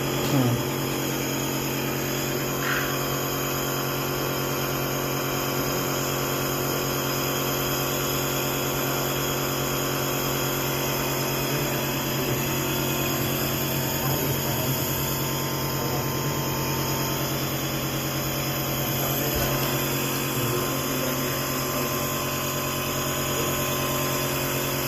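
A nebulizer's electric compressor running with a steady, even hum while it mists medicine for a cough inhalation treatment.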